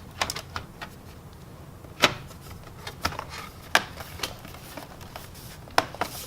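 Plastic bottom cover of a Dell Inspiron laptop being set on and pressed into place: scattered sharp clicks and taps, the loudest about two seconds in.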